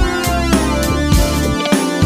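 Background music with a steady drum beat and electric guitar, some notes bending in pitch.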